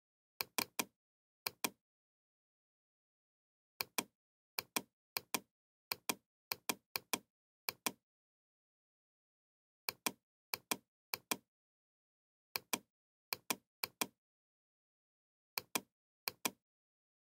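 Computer mouse button clicks, each a quick press-and-release double tick, coming irregularly in small clusters with dead silence between, as traces are placed point by point in PCB layout software.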